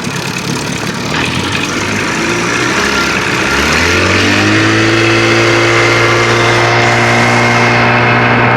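1980 Johnson 25 hp two-cylinder two-stroke outboard motor throttled up. About three seconds in its pitch rises over a second or two, then it runs steadily at speed.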